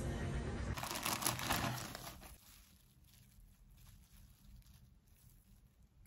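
Clear plastic cling film crinkling loudly as food is unwrapped by hand, about a second in, then dying down to faint scattered rustles.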